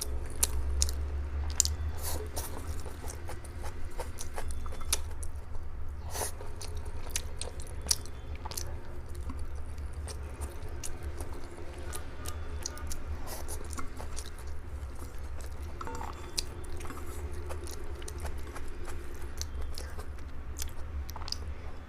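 Someone chewing and eating kao leng mian (grilled cold-noodle sheets), with many small mouth clicks, over a steady low hum.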